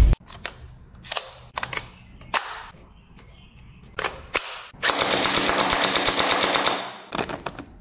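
Electric gel blaster firing on full auto: a rapid, even run of shots lasting about two seconds, near the end. Before it come scattered plastic clicks and one louder clatter as the gun is handled and its gel-ball hopper fitted.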